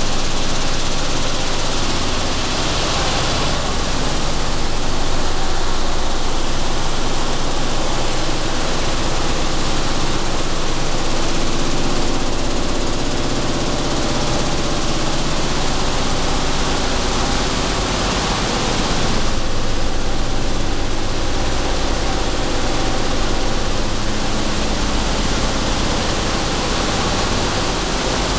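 Sunflower seed cleaning and dehulling machinery running: a loud, steady industrial din from vibrating screen decks with seed flowing across them.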